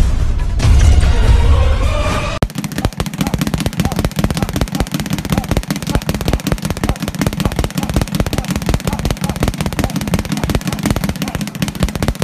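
Short bass-heavy intro music, then, about two and a half seconds in, a boxing speed bag starts rattling in a fast, unbroken stream of punches, the leather bag bouncing against its wooden rebound board.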